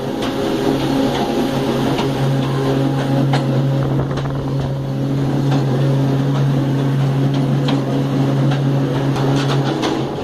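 ČKD T669 diesel locomotive's six-cylinder engine running with a loud steady drone at close range, with scattered knocks and rattles from the coupling and running gear as the train moves. The drone drops away near the end.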